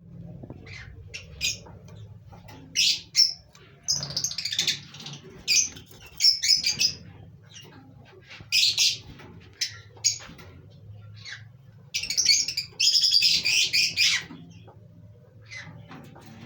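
Pet birds chirping and squawking in short, scattered calls, with longer, louder runs of calling about four seconds in and again from about twelve to fourteen seconds. A steady low hum runs underneath.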